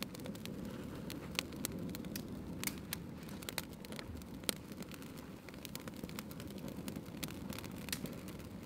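A small, freshly lit campfire catching in a bundle of dry twigs, crackling with frequent irregular sharp pops over a steady low rush.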